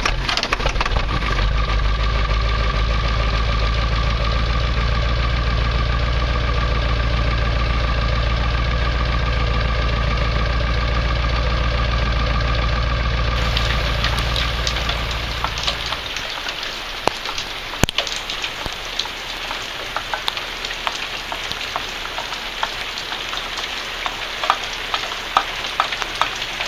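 Ford Power Stroke diesel engine running steadily, having just fired after a jump start. Its sound fades out a little over halfway through, leaving rain pattering with scattered drips.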